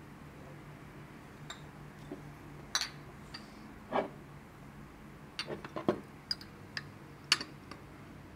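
Glass bottles clinking and knocking against each other and the table as they are handled and gathered up: a dozen or so sharp clinks at irregular intervals, busiest in the second half.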